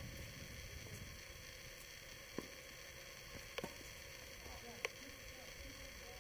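Tennis balls struck by rackets during a doubles rally: a few sharp pops about a second apart, over a steady low rumble.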